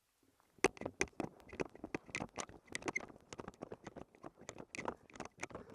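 Quick, irregular crunching and rustling of footsteps moving through dry leaves and brush, starting about half a second in.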